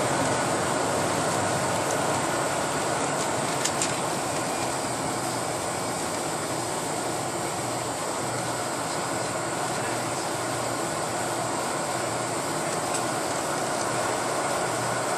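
Cabin noise of a Boeing 747-400 taxiing after landing, heard inside the cabin beside the wing: its GE CF6-80C2 engines running at low taxi power over the steady rumble of the rolling gear. A couple of faint clicks come about three and a half seconds in.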